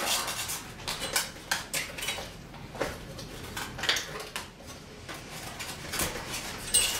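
Irregular metallic clinks and knocks as the SKIL table saw and its folding metal stand are handled and shifted on a wooden floor.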